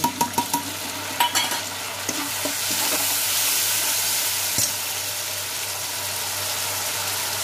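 Grated tomato sizzling in hot oil with fried onions in a kadhai, with a perforated metal spatula scraping and stirring against the pan. The sizzle swells about three seconds in, then settles to a steady hiss.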